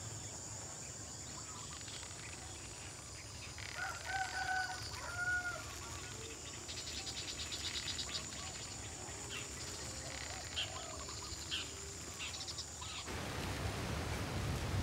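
Rural village ambience: a steady high insect trill, with a few chicken clucks between about four and six seconds in and scattered short chirps. About thirteen seconds in, the trill stops abruptly and a steady hiss takes over.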